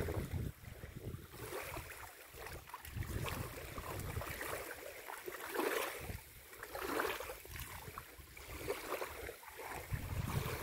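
Wind gusting on the microphone in low rumbles that come and go, with light, irregular splashing and lapping of shallow water as a man wading scoops water over his head.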